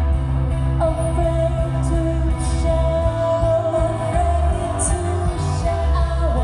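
Live band music with singing, heavy on the bass. A long held note comes in about a second in and carries on almost to the end.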